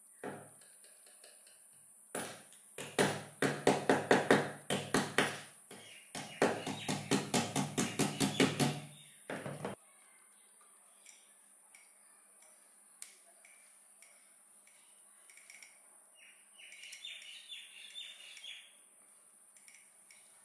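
Homemade 12V battery welder arcing: a rapid series of sharp crackling strikes for about eight seconds, getting faster toward the end, then a few scattered ticks, over a steady high hiss.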